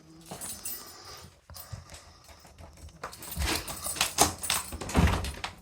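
Keys and a door lock clicking, then a run of louder knocks and clatters about halfway through as a locked door is unlocked and opened.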